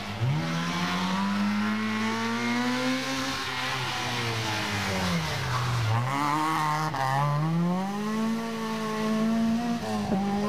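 Rally car engine revving hard: its pitch climbs, falls away about halfway through, then climbs again before dropping near the end.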